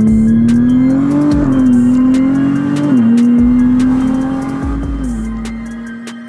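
A car engine held at high revs, its pitch climbing and then dropping in steps, mixed with electronic music with a steady beat and deep bass hits; the sound fades out over the second half.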